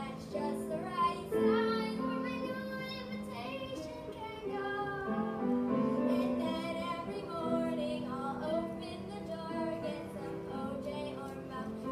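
A girl singing a song, with instrumental accompaniment.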